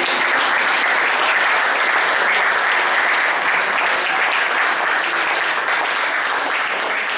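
Audience applauding, starting as the jazz band's last sustained notes stop, and easing off slightly near the end.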